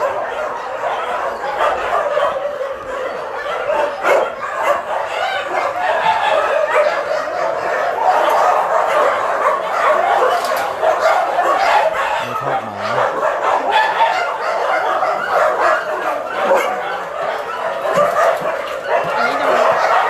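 Many dogs barking, yipping and whining all at once in a very loud, unbroken din.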